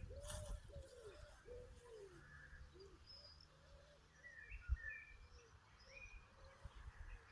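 Faint birdsong: a run of short, arching calls that fade away over the first few seconds, then a few thin, higher chirps midway.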